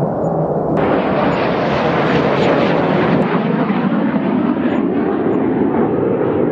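Fighter jet engine noise, loud and continuous, turning suddenly brighter and harsher about a second in, the hiss then easing slightly toward the end.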